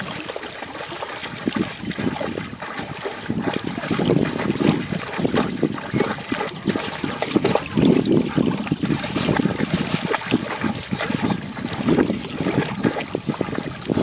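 Rottweiler wading and splashing in shallow water, pawing at it and dunking its muzzle, in uneven splashes.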